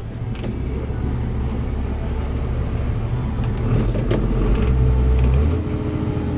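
Tractor engine running with its PTO driving a blower. The drone builds in level over the first five seconds, then drops and settles into a different steady note about five and a half seconds in.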